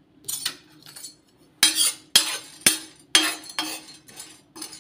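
Steel spatula scraping and stirring whole cloves across a hot iron tawa as they dry-roast: a run of about eight quick scraping strokes, loudest in the middle.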